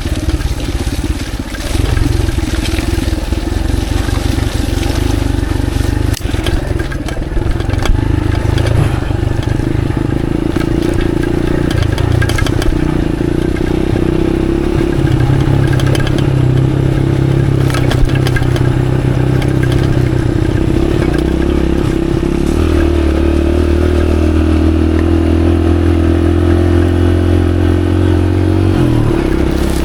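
Off-road motorcycle engine running as the bike is ridden over a wet dirt track. The engine note shifts to a new steady pitch about halfway through and again later, with scattered clattering from the bike over the rough ground.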